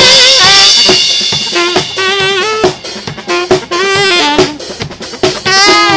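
Live street band: saxophones playing a melody with bent notes over a drum kit beat, with sharp drum hits and a cymbal wash in the first second.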